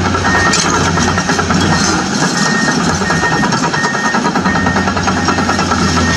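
Steady engine-like running sound with a faint repeating high tone.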